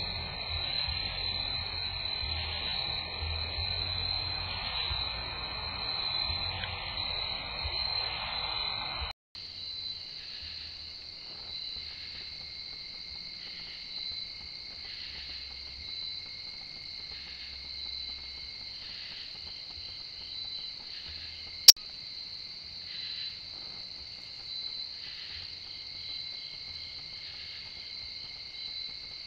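Chorus of night insects: a steady high-pitched trill with a rhythmic chirp repeating about once a second. About two-thirds of the way through there is a single sharp click.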